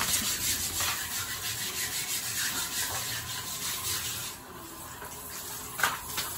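Handheld shower head spraying water onto a wet dog's coat, a steady hiss that drops away about four seconds in; a short sharp knock near the end.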